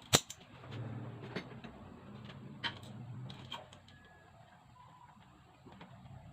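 A single sharp click just after the start, then a few fainter clicks and knocks over a faint low hum that fades out about halfway through.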